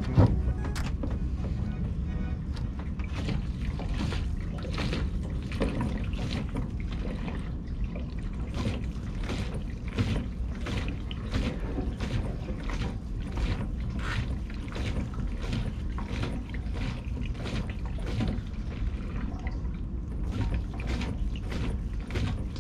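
Gasoline running from a boat's fuel hose into a plastic gas can, with irregular small splashes and gurgles, one or two a second, over a steady low rumble. The fuel is being forced out by pressure in a tank whose vent is clogged.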